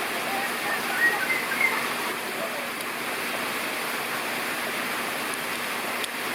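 Steady rush of running water, with a few short bird chirps about a second in.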